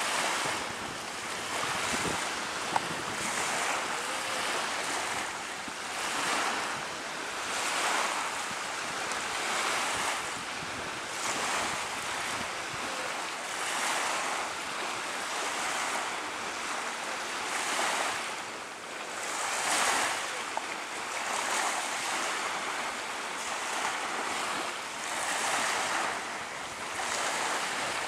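Small waves breaking and washing onto a shallow shore in a steady wind. The wash swells and fades every two seconds or so.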